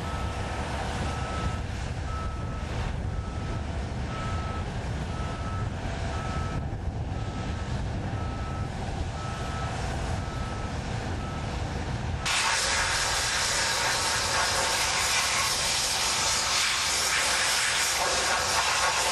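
A heavy construction vehicle's backup alarm beeping about once a second over a low engine rumble. About twelve seconds in, the sound changes abruptly to a loud, steady hiss.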